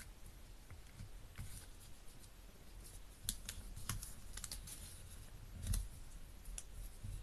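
Square of origami paper being folded and creased by hand on a table: scattered soft crackles and clicks of the stiff paper, more frequent from about three seconds in, with one dull knock near the end.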